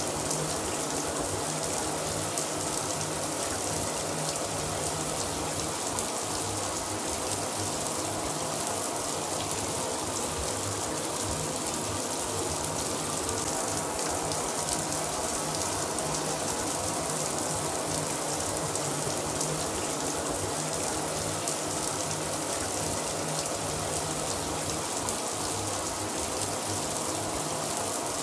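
Shower running steadily: an even hiss of water spraying and splashing down.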